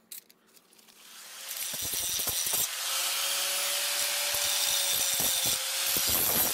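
Angle grinder with a grinding wheel spinning up about a second in, then running steadily with a high whine as it grinds the cut edges of a heavy-duty steel fence-post bracket to clean them up.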